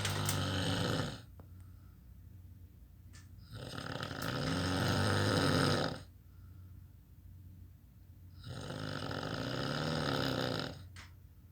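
A person snoring: long snores about every five seconds, each swelling over a couple of seconds and then cutting off, with quiet breathing between. One snore ends about a second in and two more follow.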